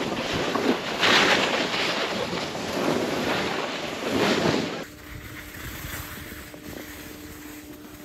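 Skis sliding and scraping over snow while skiing downhill, mixed with wind rushing over the microphone, swelling louder several times. About five seconds in it drops abruptly to a quieter, steadier hiss with a faint low hum.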